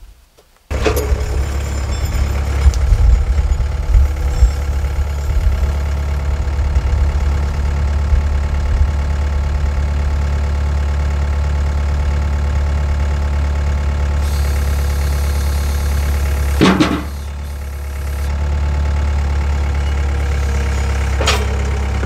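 Takeuchi TL130 compact track loader's diesel engine running loudly and steadily as the loader's grapple lifts and carries a pine cant onto the sawmill. About 17 seconds in there is a single sharp knock, and the engine eases off briefly before picking up again.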